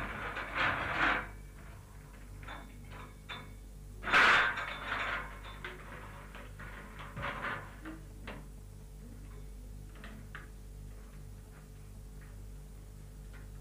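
Crockery on a tea tray being carried in and set down: a few short noisy swishes in the first five seconds, then scattered light clinks of teapot and cups, over a steady low electrical hum.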